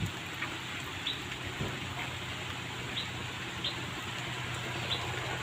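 A handful of short, high bird chirps spaced a second or so apart, over a steady background hiss and low hum.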